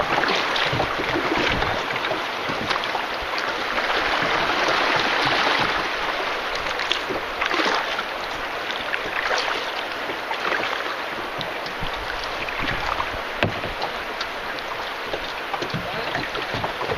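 Canoe on a river: a steady rush and splash of moving water around the boat, with scattered knocks and splashes from paddling.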